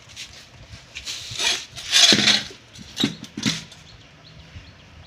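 A few short scraping and rustling handling noises as tools are moved about, the loudest about two seconds in, followed by faint light ticks. The electric cutter is not running.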